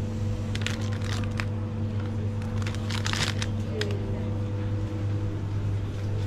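Plastic packaging crinkles and rustles briefly a few times over a steady low hum.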